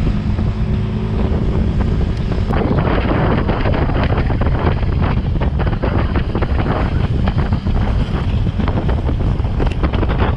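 Wind buffeting the microphone of a camera on a moving motorcycle, over the steady drone of the engine and road noise. The rush turns rougher and more crackling about two and a half seconds in.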